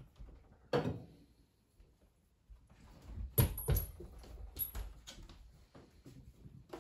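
Household handling noises in a small room: a knock about a second in, then a cluster of sharp knocks with a brief light clink around the middle and a few scattered taps, as a person moves objects about and a dog walks around.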